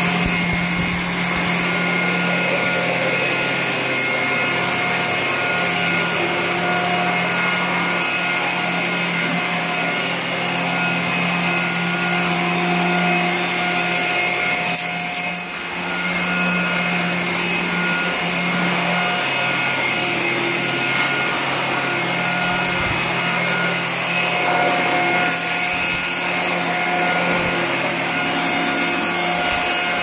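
Fakir Darky upright stick vacuum cleaner running steadily at full suction, a constant motor whine, as its floor nozzle is pushed back and forth over laminate flooring. It dips briefly about halfway.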